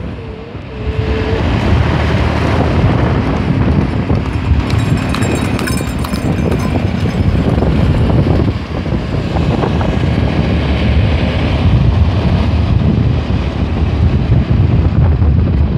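Wind buffeting the phone's microphone on a moving motorcycle, a steady loud rumble with road and traffic noise underneath; it dips briefly about a second in.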